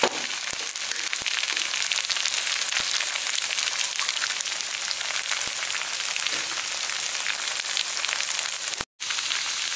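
Eggs frying in hot oil in a wok beside char kway teow noodles: a steady sizzle full of fine crackles. The sound cuts out completely for an instant near the end.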